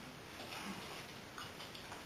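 Faint light ticks and scuffs of a small dog's claws and paws on a tiled floor and against a box as it noses into the box.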